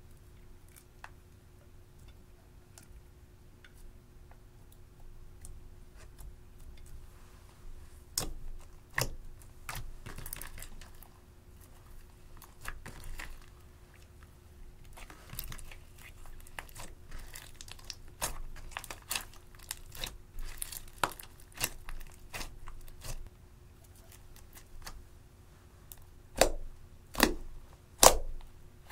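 Slime being kneaded and stretched by hand, with makeup crumbled into it: sticky crackling and clicking that grows busier after the first few seconds, and a few loud pops near the end as fingers press into thick purple slime.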